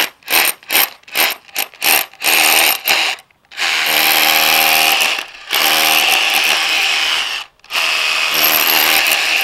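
Cordless hammer drill boring into concrete, first in quick short bursts and then in longer runs of a second or two with brief pauses. The bit is being tilted from the lip of a bolt hole to cut a notch.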